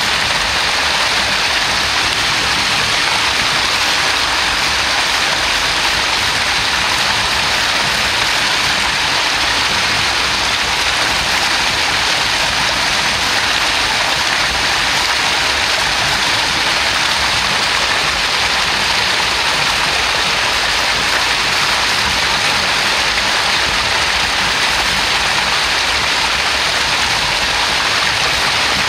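Small spring-fed cascade: clear water pouring over a low rock lip out of a pool, a steady, unbroken splashing rush.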